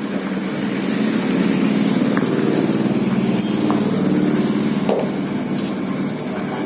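Car engine running with its Denso AC compressor engaged, the compressor making a rough, rattling growl ('ngorok'), with a few sharp clicks. The noise is the sign of worn bearing shells and crankshaft play in the compressor.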